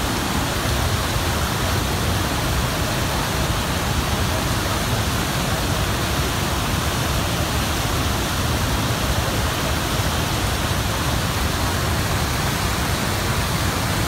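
Large waterfall close up: a mass of river water pouring and crashing over rocks in a steady, unbroken rush.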